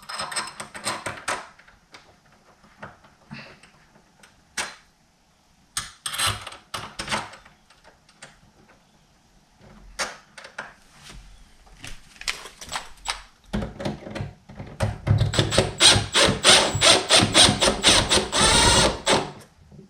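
Deadbolt parts and screws clicking and rattling as they are handled, then a cordless power driver running in quick rattling bursts for about six seconds, driving the lock's mounting screws through the bracket.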